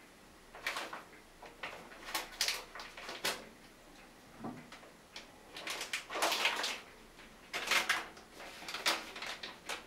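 Irregular knocks, clicks and rustles of things being handled at a bathroom sink, in short bursts of a fraction of a second to about a second, spaced unevenly.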